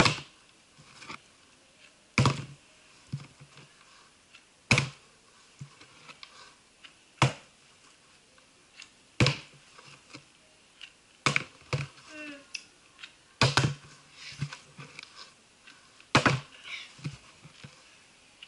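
A partly filled plastic drink bottle being flipped again and again and landing on a wooden floor: a sharp thud and clatter about every two seconds.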